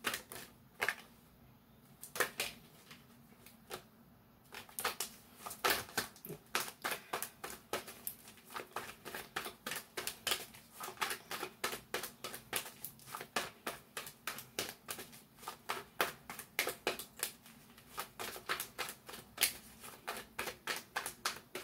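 Tarot deck being shuffled by hand: a string of quick card clicks and slaps, a few at first, then steady at about four a second from about five seconds in.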